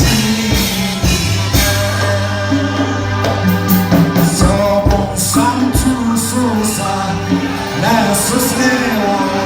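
Live gospel music with a voice singing over a steady drum beat and sustained bass notes.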